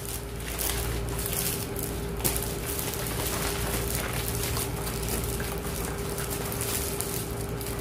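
Thin plastic shopping bag rustling and crinkling as notebooks are pulled out of it, over a steady hum.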